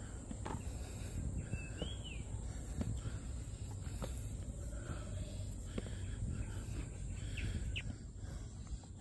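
A bird gives a whistled call that rises then falls about two seconds in, and a second short call comes near the end, over a steady low rumble.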